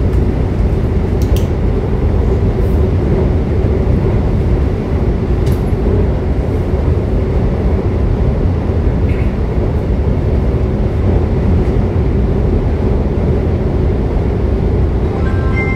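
Cabin running noise of a Taiwan Railway EMU700 electric multiple unit, heard inside its motor car: a steady rumble of wheels on rail with a faint steady hum from the Toshiba IGBT-VVVF traction equipment, and a few sharp clicks. Near the end a chime of short tones begins.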